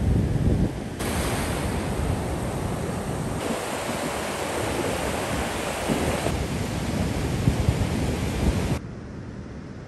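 Ocean surf washing up a sandy beach and waves breaking, with wind buffeting the microphone. The sound changes abruptly several times and drops quieter near the end.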